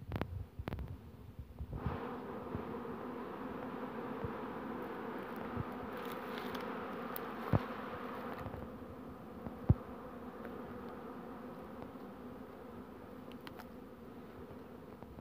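Steady buzz of many honeybees flying around the hive entrances, setting in about two seconds in and swelling briefly in the middle. Two sharp clicks stand out near the middle.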